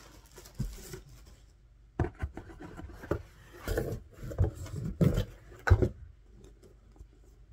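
Packaging being handled and pulled away from a hardcover book: an irregular run of rustles, scrapes and knocks from about two seconds in until about six seconds in.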